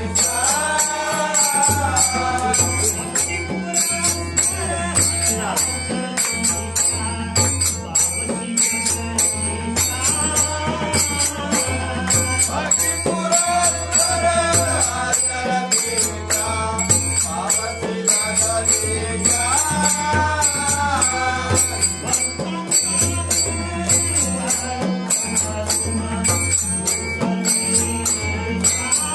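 A group singing a Marathi aarti (devotional hymn) to harmonium and a two-headed barrel drum, with rhythmic hand-clapping and jingling percussion keeping the beat.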